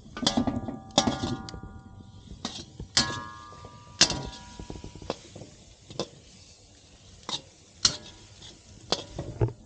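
Metal utensil knocking and scraping against a metal cooking pot, irregular clinks, several of them leaving a brief metallic ring.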